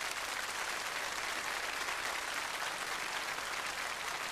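Large studio audience applauding, a steady wash of clapping.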